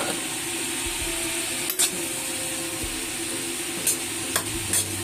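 Shredded cabbage and carrots sizzling in a stainless steel frying pan on a gas burner, with a metal spoon clinking against the pan as the vegetables are stirred: one sharp clink about two seconds in and several more near the end.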